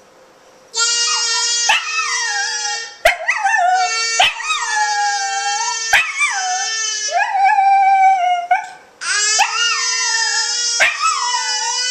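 Welsh terrier howling in long calls that waver up and down in pitch, breaking into whimpering yips, with a short pause near the end. A few sharp clicks fall between the howls.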